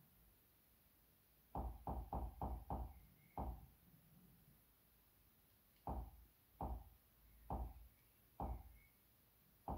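Nvidia Shield Pro's menu navigation clicks, soft knocks with each step through the menus. There is a quick run of six about a second and a half in, then five more spaced about a second apart.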